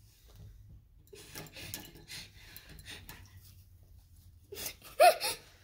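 Faint rubbing and scrubbing of a paintbrush being cleaned off, then a short loud cry from a child near the end.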